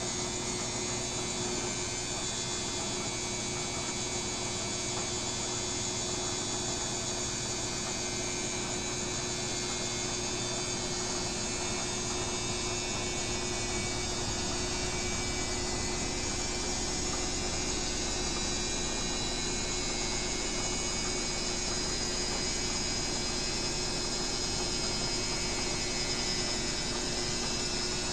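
Washing machine running with a steady motor hum and hiss, without loud knocking or banging.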